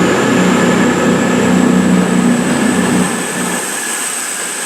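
CrossCountry Class 221 Voyager diesel-electric train pulling out, its underfloor diesel engines running with a steady drone and a thin high whine above it. The engine drone fades about three seconds in as the train moves off.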